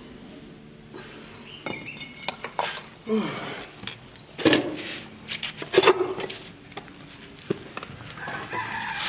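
Chickens calling, with a rooster-like crow, and a few sharp clinks.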